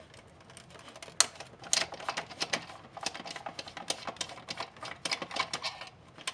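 Hard plastic flashlight housing being handled and worked apart with a screwdriver: many irregular small clicks and taps of plastic parts.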